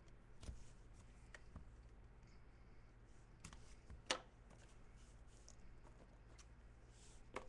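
Near silence over a low steady hum, broken by a few faint clicks and rustles of trading cards and their packaging being handled; the sharpest click comes about four seconds in.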